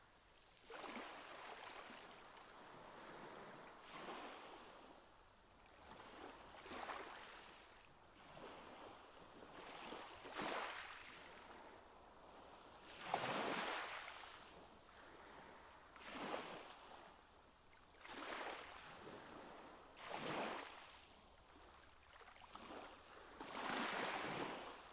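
Pool water lapping and sloshing against the concrete edge, a soft wash that swells about every two to three seconds.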